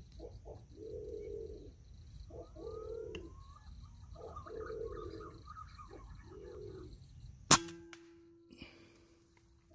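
A single scoped air rifle shot about three-quarters of the way through: one sharp crack followed by a short ringing tone that fades. Before it, a low sound repeats about every two seconds, with faint bird chirps.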